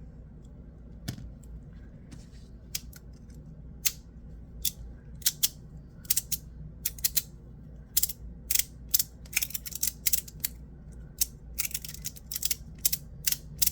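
PdEdc magnetic fidget slider being worked by hand, its pieces clicking sharply as the magnets snap them together. A few scattered clicks at first, then quick runs of several clicks a second from about eight seconds in.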